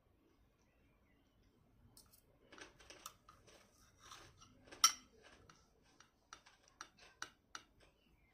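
Eating sounds: a run of small sharp clicks and clatters, like cutlery on a plate, starting about two seconds in, with the loudest single click about five seconds in and a few separate clicks after it.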